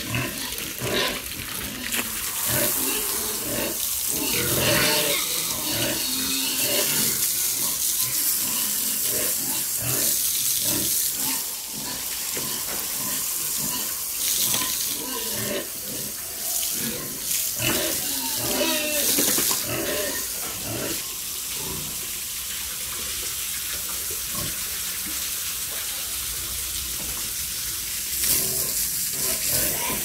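Water from a hose running and splashing steadily, with pigs grunting now and then.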